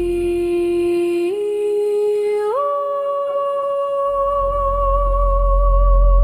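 A voice humming three long held notes, each a step higher than the one before, the last held with a slight waver. A low rumble comes in about four seconds in.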